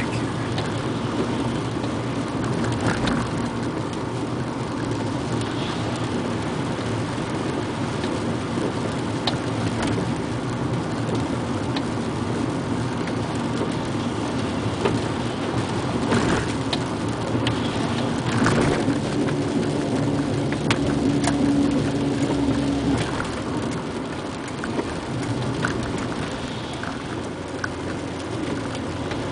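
Inside a moving car's cabin in the rain: a steady hiss of rain on the windshield and tyres on the wet road, over the engine's low hum. A few short knocks sound now and then.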